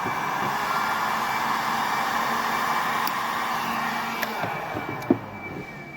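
Hot-air blower running steadily and then shutting off a little past four seconds in, heating a water heater thermostat's cutoff temperature limiter to make its reset switch trip. A single sharp click follows about five seconds in.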